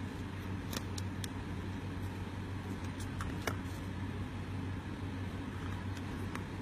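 Steady low background hum with a few light clicks and taps as plastic phone cases are picked up and handled.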